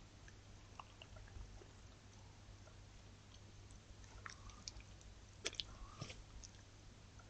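Faint clicks and crackles of a fox foraging in dry leaf litter. There are a few scattered ones early, then a close cluster of sharper clicks about four to six seconds in, over a steady low hum.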